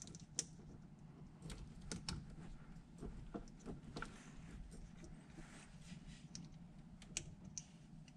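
Faint, irregular clicks and rustling of plastic-insulated quarter-inch quick-disconnect wire connectors being handled and pushed together on a backup-light relay harness.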